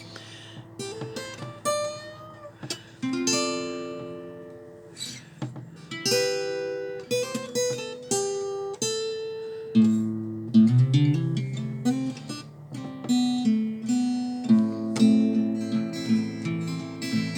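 Solo acoustic guitar playing the introduction to a folk song: picked notes and chords ringing out one after another, the accompaniment growing fuller near the end.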